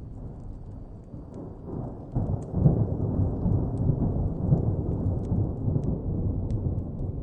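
Thunder rumbling low, swelling about two seconds in and rolling on, with faint crackles of a fire.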